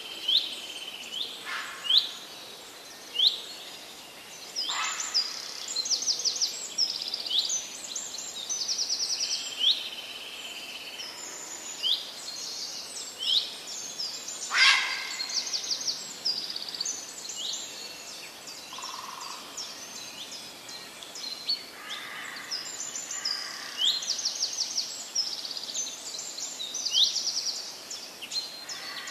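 Several small birds calling, with repeated short falling chirps and fast trills, a few louder sharp calls among them, over a faint steady outdoor hiss.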